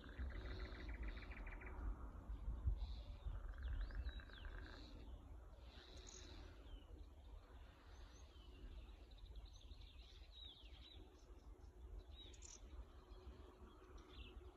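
Wild birds chirping and calling, short high whistles and gliding notes that come and go, with a rapid buzzy trill twice in the first few seconds. A low rumble underneath, strongest in the first few seconds.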